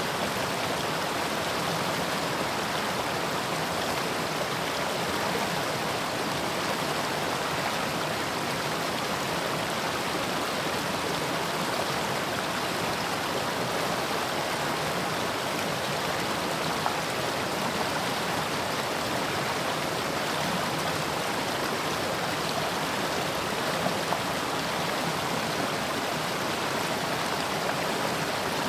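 Mountain stream flowing over rocks: a steady, even rush of running water.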